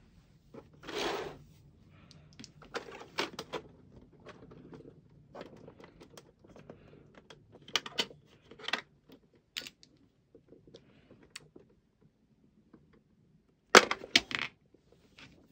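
Scattered plastic clicks and clacks from handling an ACTTO B503 retro typewriter-style keyboard, with a brief rustle about a second in and a quick run of loud clicks near the end.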